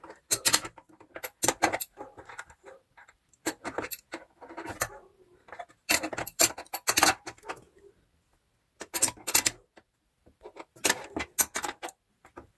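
Adjustable wrench clinking and scraping on the steel nuts of the clutch motor's belt-tension rod as they are tightened, in short bouts of metal clicks with pauses of a second or more between.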